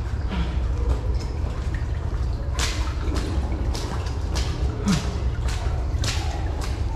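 Footsteps splashing through shallow water in a tunnel, starting about two and a half seconds in at roughly two steps a second, over a steady low rumble.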